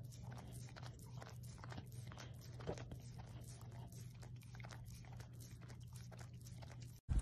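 Corgi licking a strawberry held in a hand: faint wet tongue clicks and smacks, about three a second, over a low steady hum.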